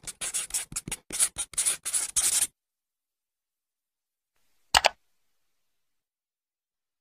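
A quick run of about ten short rustling scrapes over two and a half seconds, then dead silence, broken by one sharp double click a little later.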